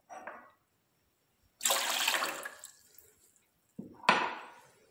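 Water poured from a cup into a steel saucepan: a splashing pour of about a second, then a sharp clink and a second, shorter pour near the end.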